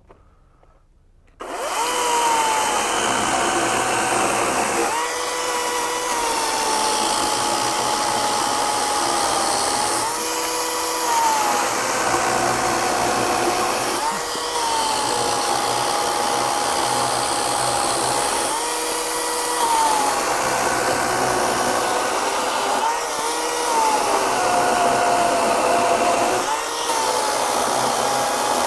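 EGO 56-volt brushless 16-inch battery chainsaw starting up about a second and a half in and cutting a freshly cut 5-inch oak log round after round. Its electric motor whine sags in pitch as the chain bogs into the wood and jumps back up as each cut finishes, about six times.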